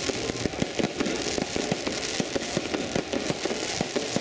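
Fireworks going off: a dense, fast run of sharp pops and bangs with crackling in between.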